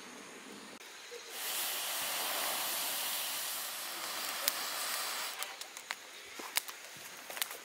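Dry leaves and twigs catching fire in a small folding fire pit: a steady hiss of flames for a few seconds, then sharp crackles and pops coming more and more often near the end.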